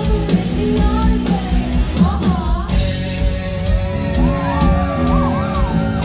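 Live rock band playing: drums, electric guitar, bass and acoustic guitar, with a woman singing over it.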